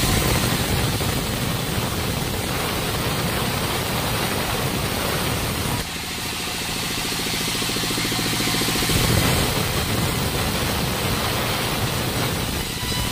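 Sawmill vertical band saw running and ripping a wooden slab that is fed through by hand, a steady machine hum under a broad hiss. The sound drops about six seconds in and then builds to its loudest around nine seconds.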